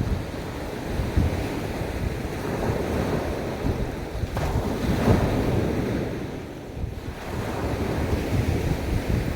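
Sea waves washing onto a beach, with wind buffeting the microphone as a low rumble. A surge swells about halfway through and eases off soon after.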